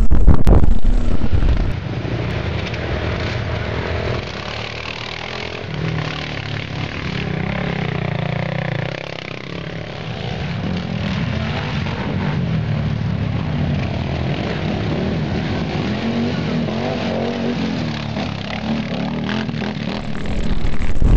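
Quad bike (ATV) engines running and revving on an off-road dirt course, the pitch rising and falling as they accelerate and ease off. For the first two seconds, and again from near the end, a much louder close-up rush of engine and wind noise.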